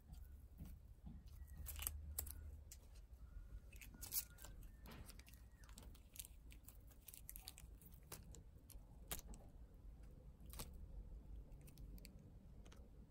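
Near silence with a low outdoor rumble and scattered faint clicks and rustles as a long-haired cat bats at a ribbon wand toy.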